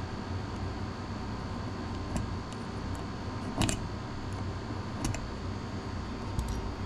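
Four light clicks and taps of metal hand tools being handled on the workbench, the loudest about halfway through, over a steady fan hum.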